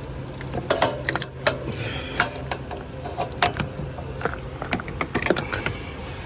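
Irregular metallic clicks and clinks of hand tools and metal parts being handled, with a low steady hum during the first couple of seconds.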